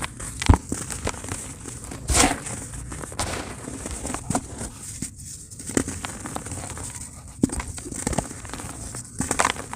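Dry chunks of pure cement crumbling in a tub: irregular gritty crackles with a few louder crunches, the loudest about two seconds in.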